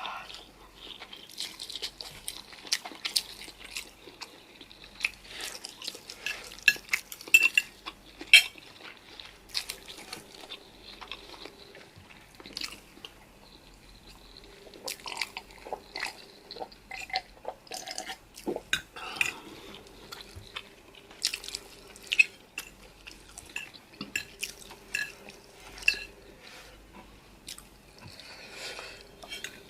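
Eating sounds: utensils clicking and scraping against dishes in an irregular run of sharp clicks, with chewing of spicy noodles and chicken between them.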